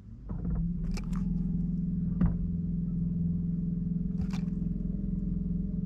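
A steady, even motor hum starts about half a second in and runs on without change, with a few light clicks and one knock about two seconds in.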